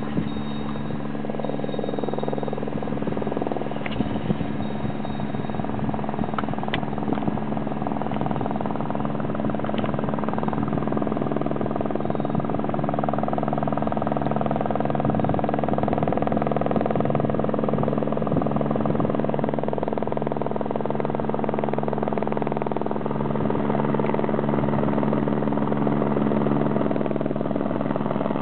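Airbus AS350 B3 Écureuil helicopter, single-turbine with a three-blade main rotor, approaching to land: a steady rotor and turbine drone that grows gradually louder as it comes nearer.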